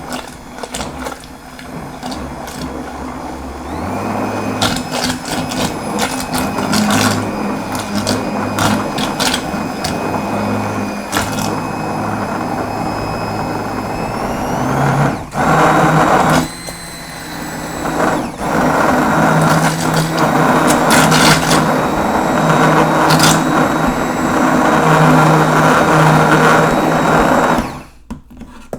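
Braun Multiquick Vario 5 hand blender motor running, its hum and whine stepping up in pitch about four seconds in and again about halfway, with a brief dip soon after. Frequent sharp clicks and knocks run through it, and the motor cuts off about a second before the end.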